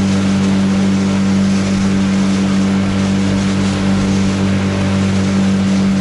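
Boat's outboard motor running at a steady speed, an even hum that does not change.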